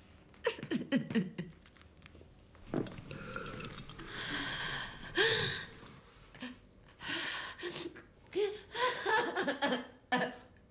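A woman's breathy vocal sounds: several short gasps and sighs in bursts, with a long breathy exhale in the middle.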